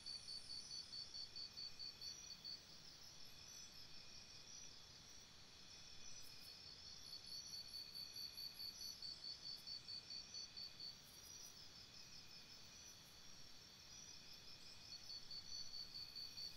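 Faint high-pitched insect chirping, like crickets: quick even pulses at about five a second, in runs that fade and come back, over a few steadier high tones.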